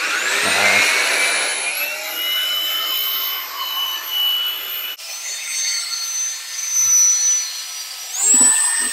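Electric drill spinning a wet 500-grit sanding pad against a plastic headlight lens, sanding off old glue residue. The motor whine rises as it spins up, then runs steady over a gritty rubbing, changes abruptly about halfway through and steps up in pitch near the end.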